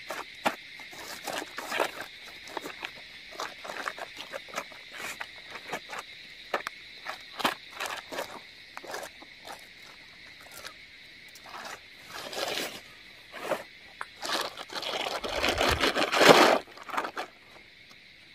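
Crickets chirping steadily while a tent is unpacked and spread on the grass: frequent short rustles and clicks of handling, with louder rustling of the tent fabric being shaken out about twelve seconds in and again near the end.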